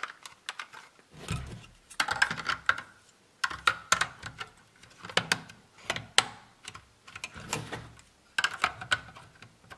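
LEGO plastic parts clicking and snapping as curved white panels of a LEGO Saturn V model are pressed into place, in several clusters of sharp clicks with handling noise between. There is one dull knock a little over a second in.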